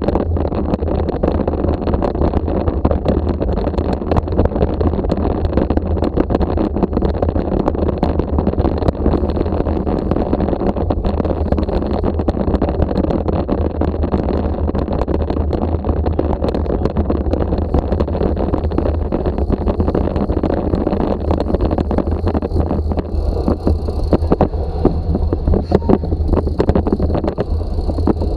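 Road bicycle rolling over cobblestones: a steady low rumble with dense, rapid rattling and knocking from the tyres and bike on the uneven stones.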